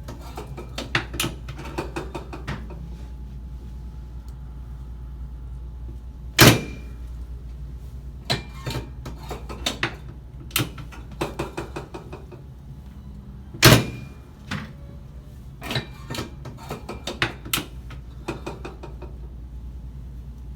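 Chiropractic adjustments on a treatment table: clusters of light clicks and knocks, with two loud, sharp knocks about a third and two thirds of the way through, over a steady low hum.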